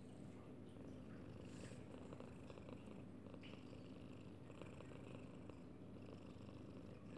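Long-haired cream cat purring faintly and steadily, a low, even rumble.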